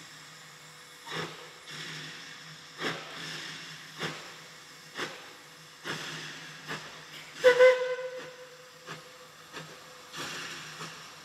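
NA-class steam locomotive 12A working slowly, with a sharp exhaust chuff about once a second. A little past halfway it gives a short double toot on its five-chime steam whistle, and the whistle's tone fades out over about two seconds.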